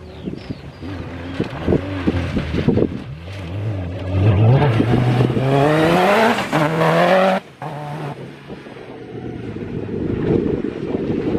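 Off-road racing car's engine accelerating hard, its pitch rising steadily for about three seconds and then cutting off suddenly. Wind buffets the microphone near the end.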